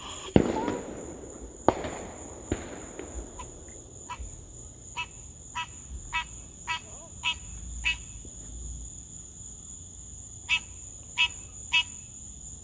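Fireworks going off in the distance: three sharp bangs in the first three seconds, each trailing off in a long echoing rumble. Then an unseen creature in the woods chirps repeatedly, about two short calls a second, pauses, and chirps three more times, over a steady high insect drone.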